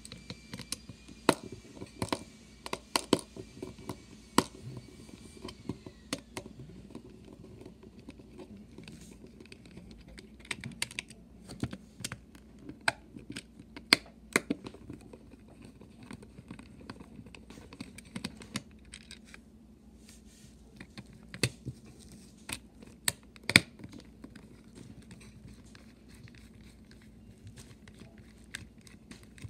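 Small precision screwdriver clicking and scraping in the screws of a plastic toy train tender chassis, with irregular sharp clicks as the screwdriver and parts are handled, over a faint low hum.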